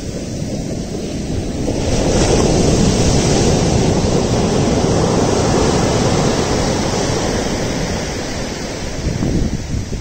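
Sea surf breaking and washing up a sandy beach. The wash swells to a crash about two seconds in, then slowly subsides, with another surge near the end.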